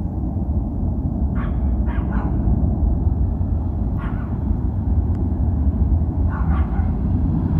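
A deep, steady jet-like rumble in the night sky, of unknown source. A dog barks several times over it.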